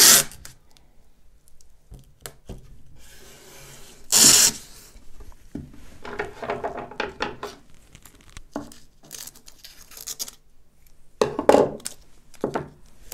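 Masking tape being pulled off the roll in three loud rips, at the start, about four seconds in and near the end, with quieter rubbing in between as the tape is pressed down onto the wood of a pine drawer.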